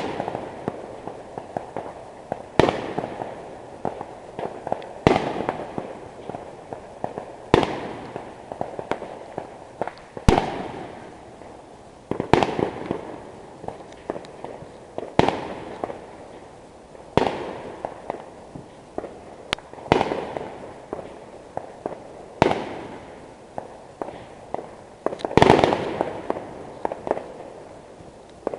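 Fireworks going off: a loud bang every two to three seconds, each one trailing off, with a steady run of smaller pops and crackles between them.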